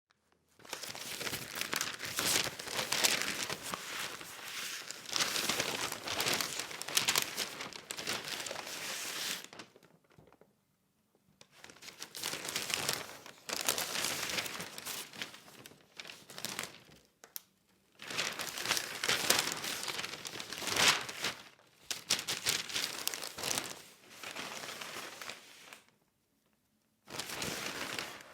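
Newspaper pages being handled and turned: crisp paper rustling and crinkling, coming in several long stretches with brief pauses between them.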